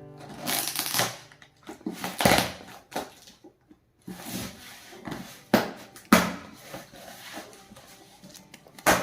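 Packing being handled as a box tanpura is pulled out of its box: rustling and crinkling, with several sharp knocks and thumps.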